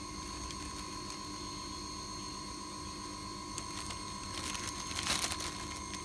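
Plastic bag rustling as a hand moves harvested swiftlet nests, with scattered small clicks and a louder rustle about five seconds in. Under it runs a steady whine of several high tones.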